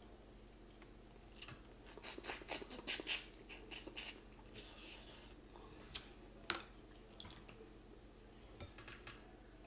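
Close-miked eating of snow crab legs: a run of crackles and clicks as the shells are snapped and picked apart by hand, with wet sucking and chewing as the meat goes into the mouth, then two sharp cracks a little past the middle.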